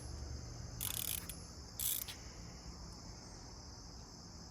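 Crickets chirping in a steady high drone, with two short hisses about one and two seconds in.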